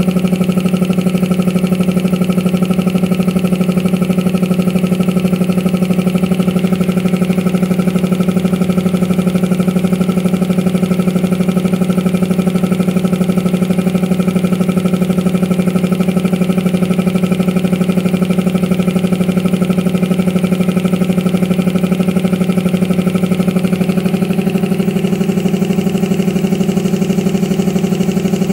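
Belt-driven piston air compressor running steadily under load, a constant hum with fast even pulsing from the pump, as it pumps the tank up past 100 psi toward its pressure-switch cut-out.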